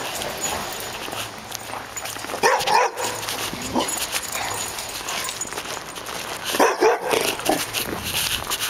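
Dog barking behind a fence: a run of barks about two and a half seconds in, and another run near seven seconds.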